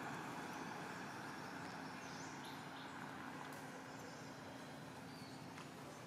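Steady outdoor background noise with a faint low hum, and a few faint high chirps about two and five seconds in.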